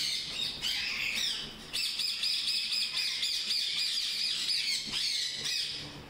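A room full of caged parrots and parakeets chattering together: a constant din of many overlapping high chirps and squawks, which grows denser a little under two seconds in.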